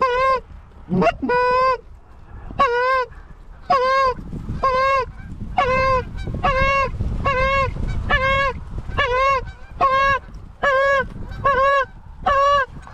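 Goose call blown by a hunter, giving a steady run of loud, clean honks, about one or two a second, with a single rising moan about a second in: calling to bring Canada geese into the decoys.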